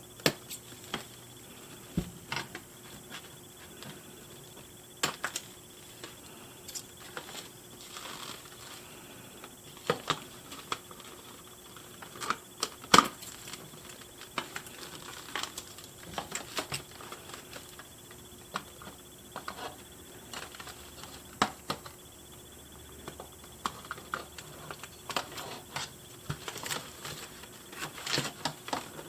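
Cardboard doll box and plastic packaging being handled: irregular small clicks and taps with occasional brief crinkling.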